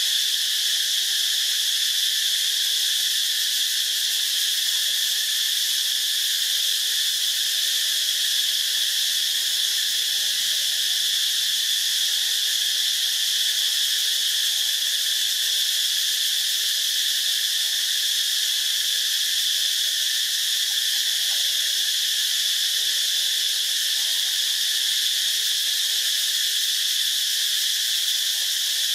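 Tropical insect chorus, a dense high-pitched drone that holds steady without pause.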